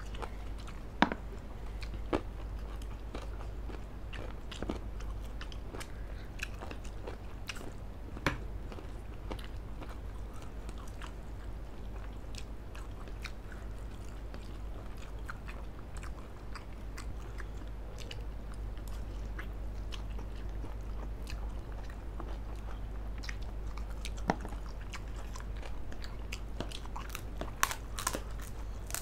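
Close-miked eating: chewing of spicy instant noodles and grilled chicken, with scattered sharp clicks over a low steady hum. Near the end comes a quick run of crunches as a crispy cracker is bitten.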